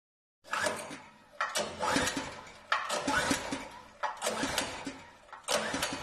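Small petrol donkey engine being pull-started by its recoil cord: about five pulls, each a sharp burst of the engine turning over that fades away without settling into a steady run.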